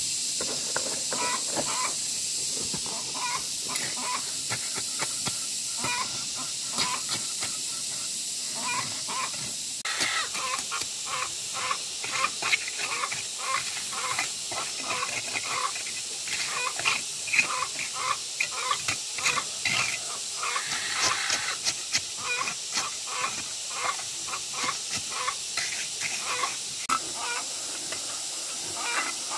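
Domestic fowl calling in short, repeated calls, sparse at first and coming thick and fast from about a third of the way in, over a steady high hiss.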